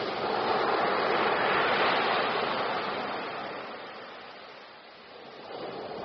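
Ocean surf: a wave breaks, swelling to its loudest a second or two in, then its wash fades away before the next wave rises near the end.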